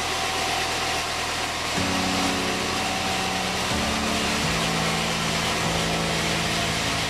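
Sawmill machinery running: a steady engine drone whose pitch shifts in steps a few times, over a hissing background.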